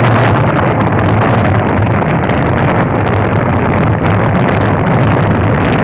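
Vehicle engine running steadily under a constant rushing noise of travel, with no change in pace.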